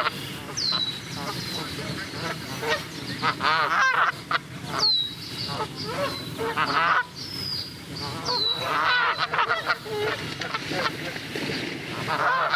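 Two Canada geese honking over and over in a rapid, irregular series. Several short, high, falling whistled notes sound over the honks.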